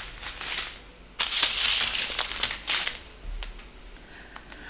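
Strip of small plastic bags of diamond-painting drills crinkling as it is handled, in a louder stretch from about a second in to nearly three seconds, then only faintly.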